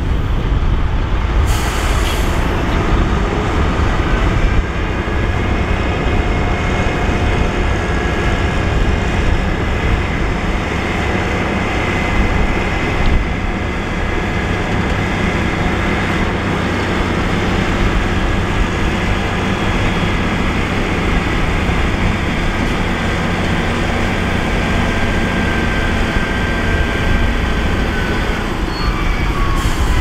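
Diesel engine of an 8x4 dump truck running steadily while its hydraulic hoist raises the tipper bed to unload dirt, with a faint steady whine over the engine. A short hiss comes about two seconds in.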